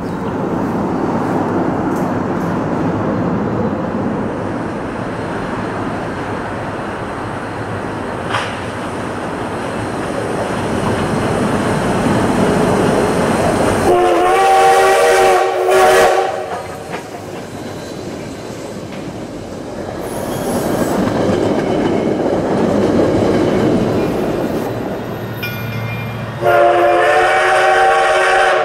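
Susquehanna 142, a 2-8-2 steam locomotive, working a passenger train with a steady running rumble. About halfway through it sounds its steam whistle, several notes at once, for about two seconds, and it starts another whistle blast near the end.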